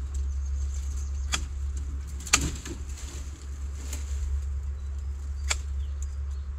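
Four sharp snaps and clicks of twigs and branches being bent and cut by hand, the loudest about two seconds in, over a steady low rumble.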